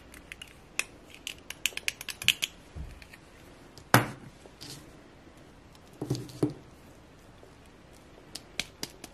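Small plastic dolls handled on a wooden tabletop: a quick run of light plastic clicks, a sharp knock about four seconds in as a doll is set down, then softer handling and two more clicks near the end.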